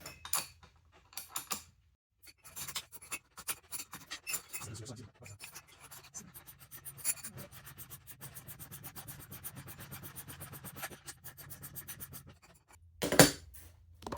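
Socket ratchet clicking in a long, even run of quick clicks as it is cranked, drawing a rubber engine-mount buffer into a vintage Vespa engine case on threaded rod. A few scattered clicks come before it, and there is one loud knock near the end.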